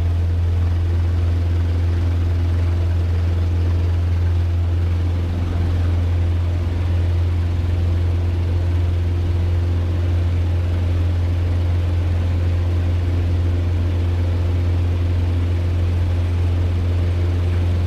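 Cessna 150's four-cylinder Continental O-200 engine and propeller droning steadily, heard inside the cockpit in flight. The hum is deep and even, with no change in power.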